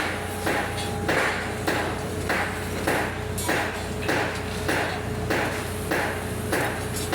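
Steady rhythmic pounding, about three blows every two seconds, over a faint steady hum.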